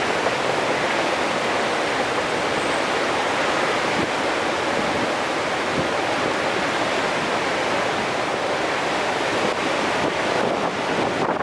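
Steady roar of a large waterfall: the High Falls of the Genesee River, water rushing unbroken and at an even level.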